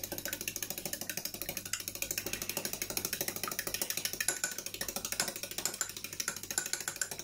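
A fork beating eggs in a glazed ceramic bowl, its tines clicking rapidly and evenly against the bowl.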